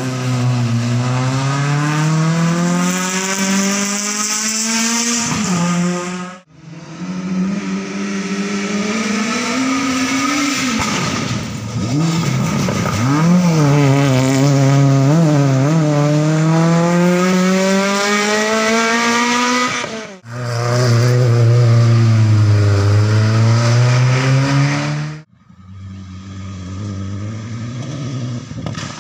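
Rally cars driven hard on a gravel stage, engines revving up and dropping back through gear changes as they pass, one car sliding sideways through a corner on the loose surface. The sound breaks off abruptly three times, about 6, 20 and 25 seconds in, as separate passes are cut together.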